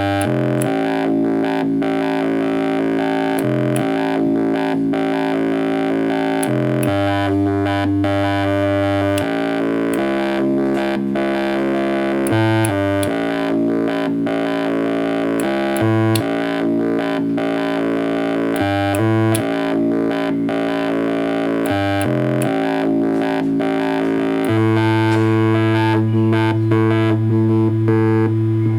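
Proton, a DIY one-chip synthesizer, playing a run of held droning notes with rich overtones that change pitch every second or two, with sharp clicks over them. Near the end it settles on one lower, louder note.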